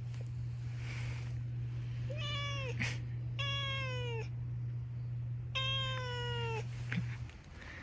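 Domestic cat meowing three times while being stroked, each meow drawn out and dropping in pitch at the end, a complaint at being touched. A low steady hum runs underneath and cuts off near the end.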